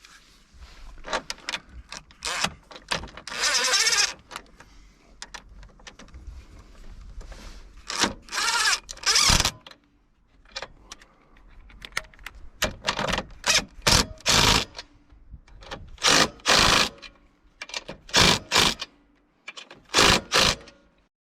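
Cordless drill run in repeated short bursts of up to about a second, with clicks and knocks in between, driving the bolts that hold the winch face on.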